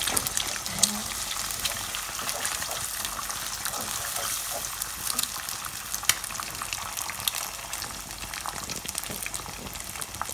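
Eggs frying in hot oil with browned garlic in a nonstick wok, sizzling with a steady hiss and many small crackles. A wooden spatula scrapes and pushes through them as they are broken up.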